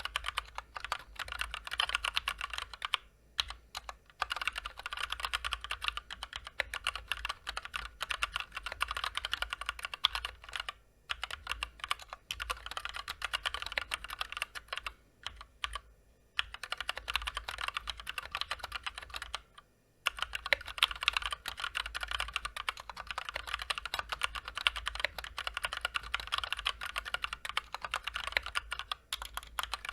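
Fast, steady typing on a Massdrop (Drop) Ctrl High Profile mechanical keyboard with stock, unlubricated Gateron Clear linear switches and PBT double-shot keycaps: a dense run of key clacks, broken by a handful of brief pauses.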